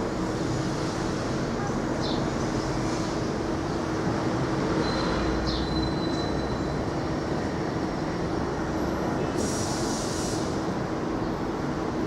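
R143 subway train moving slowly, with continuous rolling rumble and a steady low propulsion hum that fades out about halfway through. Brief high squeals come in the first half, and a short hiss comes near the end.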